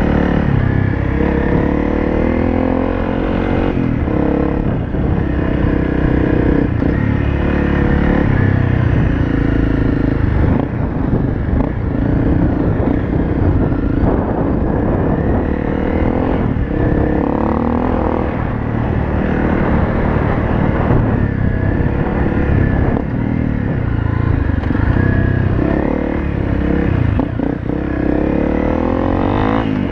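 Honda CRF250L's single-cylinder four-stroke engine running under load on a dirt track, its pitch rising and falling again and again as the throttle opens and closes through the turns.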